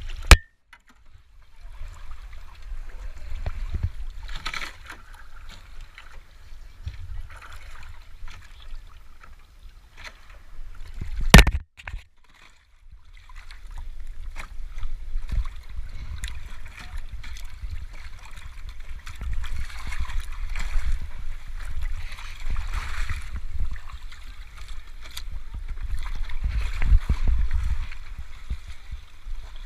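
Water and wind noise from a Voodoo Moth foiling dinghy under sail: a steady low rumble with an uneven rushing hiss. Two sharp knocks break it, one right at the start and one about eleven seconds in, each followed by a brief moment of near quiet.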